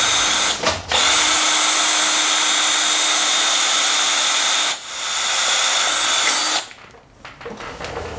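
Cordless drill boring a hole in an aircraft engine's exhaust header pipe for an exhaust gas temperature probe, running steadily under load. It stops briefly just under a second in, runs again with a short dip near five seconds, and stops about six and a half seconds in, leaving faint handling clinks.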